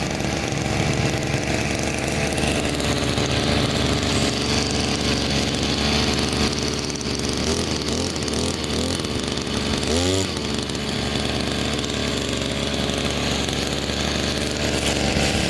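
Mitsubishi TL23 brush cutter's small two-stroke engine running steadily, now fed from a petrol tank after conversion from canister gas fuel.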